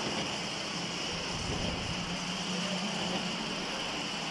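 Milling machine running steadily while its disc cutter mills the thread of a steel worm shaft: a constant hum with a hiss over it.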